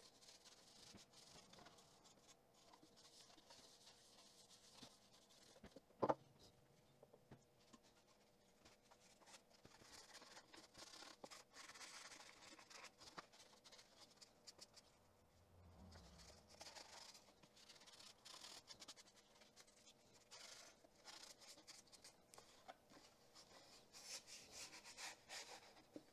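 Faint rubbing of a paper towel over a Brooks B17 Narrow saddle's leather as oil is wiped into it, with one sharp knock about six seconds in.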